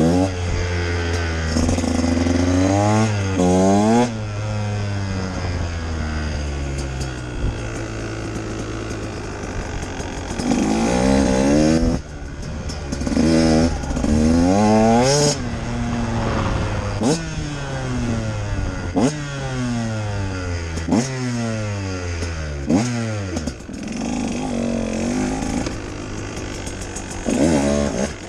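2018 Husqvarna TE 150 single-cylinder two-stroke engine being ridden, revving up and dropping back again and again as the bike accelerates and slows.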